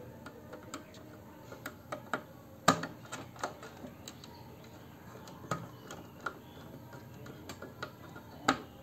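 Irregular small clicks and ticks of a screwdriver turning a terminal screw on a plastic Luminous solar charge controller, tightening the solar panel wire in. One sharper click comes about two and a half seconds in, and another near the end.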